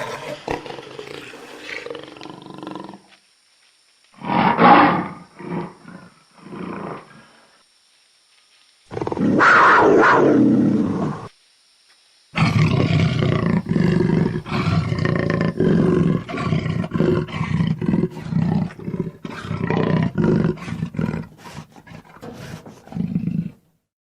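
Jaguar calling: a few separate hoarse roars, a long loud one about ten seconds in, then a long run of rapid, repeated rasping grunts, the jaguar's sawing call.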